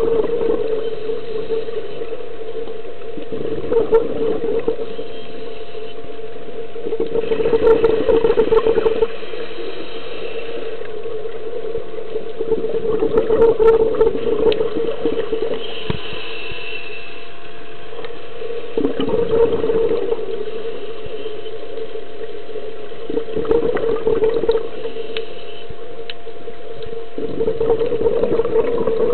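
Scuba diver breathing through a regulator underwater: an exhaled burst of bubbles every four to five seconds, over a steady hum.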